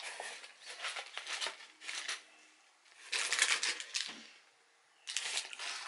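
Plastic snack wrapper crinkling in repeated bursts as it is handled and torn open. The loudest burst comes about three seconds in.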